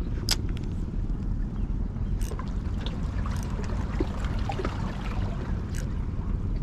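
Seawater trickling and gurgling over a steady low rumble, with a few sharp clicks and ticks scattered through.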